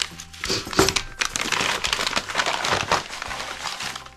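A mailed package being opened by hand, its wrapping rustling and crinkling in irregular bursts.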